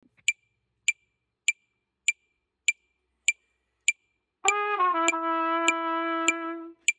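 A metronome clicks a steady beat, about 100 to the minute, for several beats with nothing else. About four and a half seconds in, a trumpet comes in over the clicks with a short note that steps down into a long held note.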